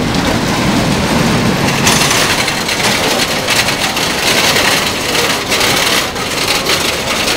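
Wooden roller coaster train rolling over its wooden track close by, a loud rumble with dense rattling clatter that starts suddenly.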